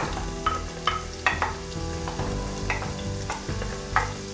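Chopped onions and fresh chillies sizzling as they go into hot olive oil in a stainless steel pot, while a wooden spatula knocks and scrapes against the bowl and pot about eight times.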